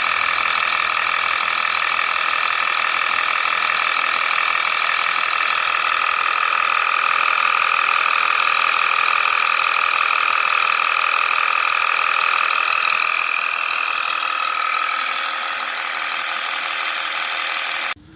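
Cheap 12-volt portable tyre-inflator compressor, powered from a car's cigarette-lighter socket, running with a steady buzzing whine as it pumps up a completely flat tyre. The sound stops abruptly near the end.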